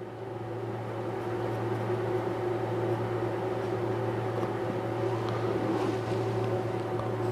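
Steady mechanical hum with a low drone and a higher tone above it, growing louder over the first couple of seconds and then holding steady.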